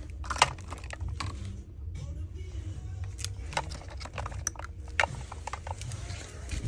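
Scattered sharp clicks and knocks, about half a dozen, over a steady low rumble; the loudest comes about half a second in.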